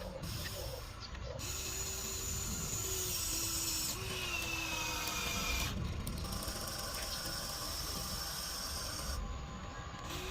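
Electric motors of a radio-controlled toy construction machine whirring steadily, with thin whines that shift in pitch as it works.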